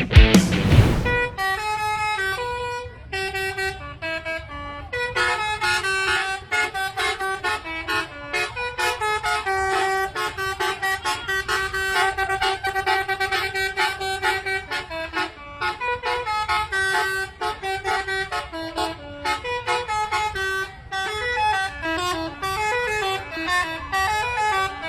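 Bus telolet horn, a multi-tone musical horn, playing quick tunes in short stepping notes, after a loud burst of music that cuts off about a second in.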